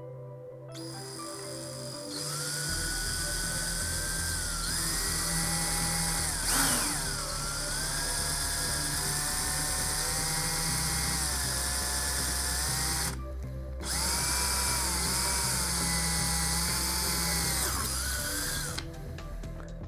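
DeWalt cordless drill with a 1/4-inch bit drilling holes through 3/4-inch PVC pipe, its motor whining with a pitch that rises and dips as the trigger is worked. It stops for under a second about two-thirds of the way through, then runs again until shortly before the end.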